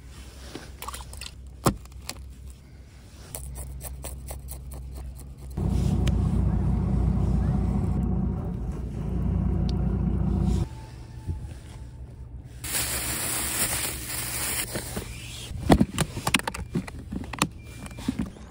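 Knife clicks and scrapes on a plastic cutting board as rockfish are cleaned and gutted. A loud low rumble starts and stops suddenly and lasts about five seconds in the middle, and a rushing hiss of about two seconds follows later.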